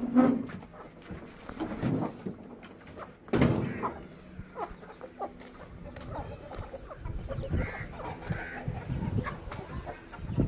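Aseel chickens clucking on and off, with two sharp knocks about three seconds apart near the start.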